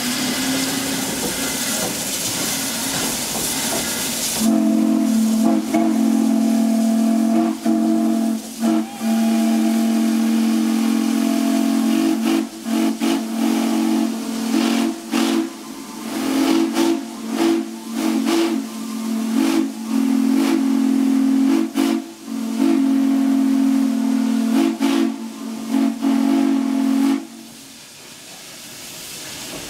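Steam locomotive (a 1916 Baldwin 2-8-0) venting steam. A hiss is followed, about four seconds in, by a loud, steady whistling steam tone of several pitches at once. It runs for over twenty seconds with many brief breaks and stops shortly before the end.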